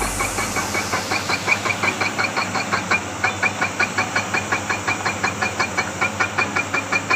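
Excavator-mounted bore-pile drilling rig running, with a fast, even knocking of about six beats a second over the machine's steady noise.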